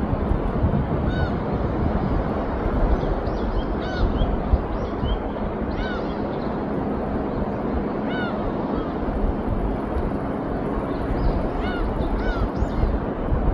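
Steady noise of wind and surf, with a bird calling again and again in short, rising-and-falling cries, half a dozen times or so.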